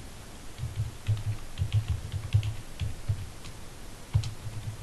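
Typing on a computer keyboard: a quick run of key clicks, then a pause and a single sharper keystroke about four seconds in.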